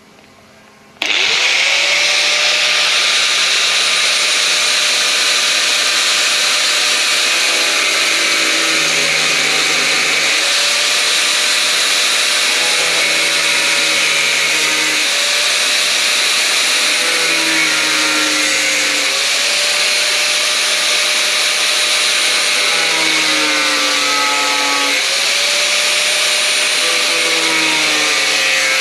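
Corded angle grinder with a thin cutoff wheel starts up about a second in and cuts through a fiberglass car bumper. The motor's whine drops in pitch several times as the wheel bites in under load and rises again as it eases off.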